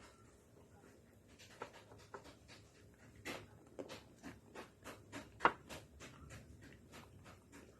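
Close-up mouth sounds of someone chewing a Magnum ice cream bar: a run of short, sharp crackles, about three or four a second, as the chocolate shell is crunched. The loudest crack comes about five and a half seconds in.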